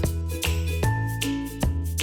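Upbeat, cheerful background music with a steady beat, bass and bright tuned notes.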